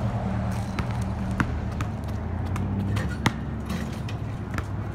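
A basketball bouncing on a driveway, a string of sharp irregular bounces, with one louder bang a little past the middle as the ball is slammed through the hoop. A steady low hum runs underneath.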